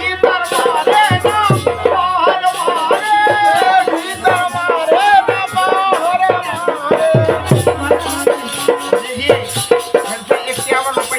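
Bundelkhandi Rai folk music: a sliding melody line over fast, steady rattling percussion and deep drum beats.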